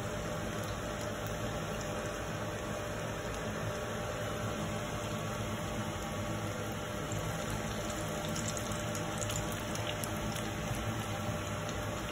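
Chicken vadai deep-frying in hot oil: a steady sizzle with scattered faint crackles.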